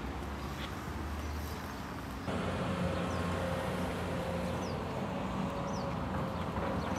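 Outdoor ambience: a steady background rush with a low rumble, a faint steady hum joining about two seconds in as it gets a little louder, and three or four short, falling bird chirps.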